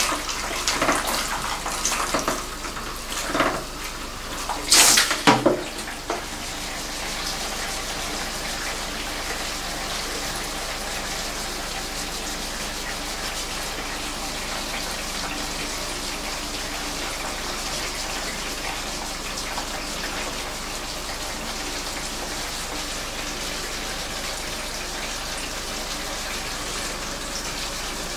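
Water from a salon backwash shower sprayer running over hair into the basin. There are a few louder, uneven splashes in the first six seconds, then a steady, even rush of water.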